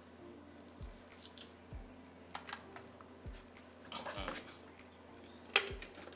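Small clicks and rattles of ingredients and plastic being handled in a plastic blender jar, the loudest a sharp click near the end as the lid goes on. A soft background-music beat pulses underneath about once a second.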